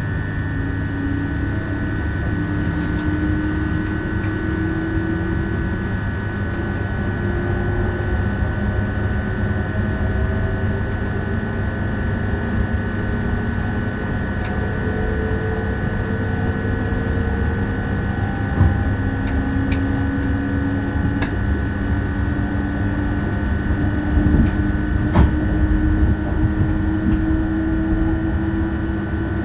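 Inside the car of a Škoda Vagonka EJ575 electric multiple unit gathering speed: a steady running rumble on the rails, with a traction-drive whine that rises slowly in pitch several times over. A steady high hum runs underneath, and a couple of single knocks come in the second half.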